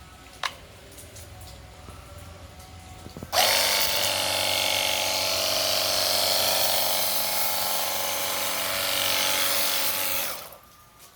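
Cordless rechargeable pressure washer gun switched on about three seconds in: its electric pump motor whines steadily under a loud hiss, then shuts off shortly before the end. A single click comes just before, near the start.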